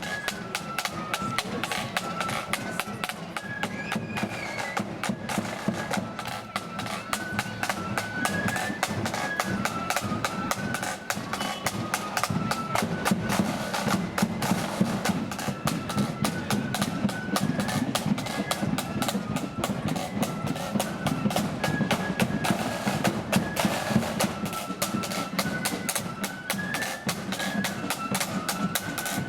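Marching flute band playing a tune: a single melody line of flutes in unison over constant rapid drumming.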